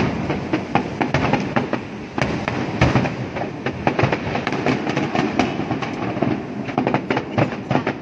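Aerial fireworks display going off in a rapid, continuous run of bangs and crackles, with one especially loud bang about three seconds in.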